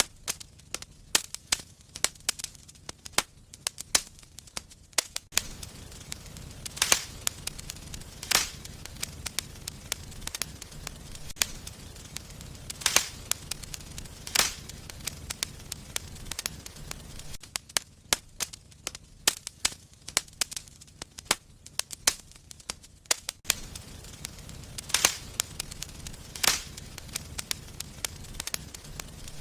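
Fireplace fire crackling, with irregular sharp pops over a low steady rush of flame, and a few louder snaps scattered through.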